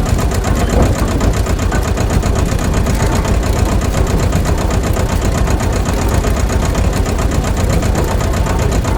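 A small motor running steadily at an even speed, with a fast regular pulse.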